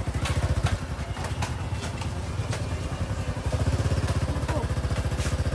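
Small motorcycle engine running close by with a steady low putter, growing louder about halfway through, with scattered light clicks and knocks over it.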